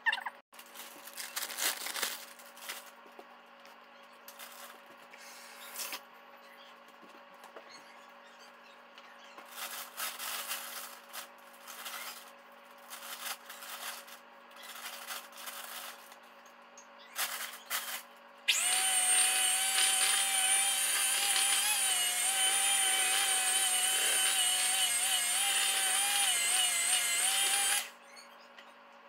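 Electric kitchen mixer running steadily for about nine seconds, then switched off sharply, after a stretch of scattered knocks and scrapes of bowls and utensils being handled on the counter.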